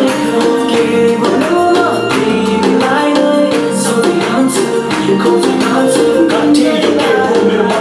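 A song with singing and a steady percussive beat played through a Zoook Rocker 2 Bluetooth speaker.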